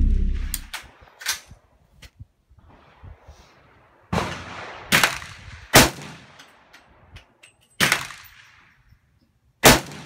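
Rifle shots from a short-barrelled AR chambered in .300 AAC Blackout with a 9-inch upper, about five loud single shots one to two seconds apart, each with a short echoing tail. A few fainter shots come in the first two seconds.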